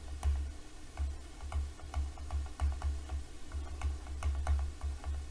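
Digital pen stylus tapping and clicking against a tablet screen while writing by hand: quick, irregular ticks over a run of dull low knocks.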